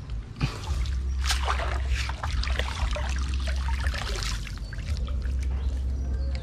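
Water streaming, splashing and dripping off a foldable mesh net trap as it is lifted out of the water and shaken, over a steady low rumble.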